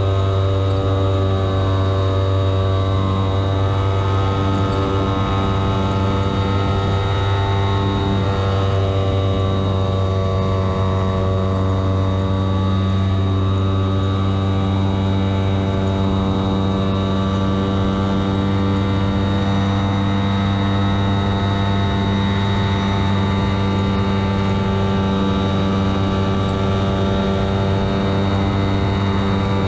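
Radio-controlled model tow plane's engine and propeller running steadily under load while towing a model glider, heard close up from the plane's own cockpit.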